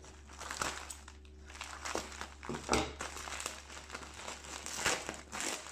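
Plastic mailing pouch crinkling as hands cut and pull open its taped end, with a few sharper crackles scattered through.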